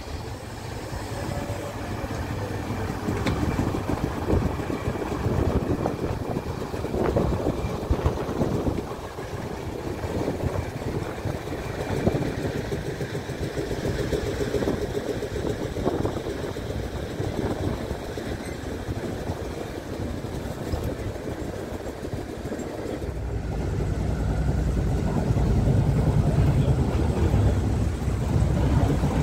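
Train of coaches rolling past behind a small Deutz diesel shunting locomotive, with a steady rumble and occasional knocks from the wheels. About three-quarters of the way in, the locomotive's diesel engine comes in close as a low throb that grows louder toward the end.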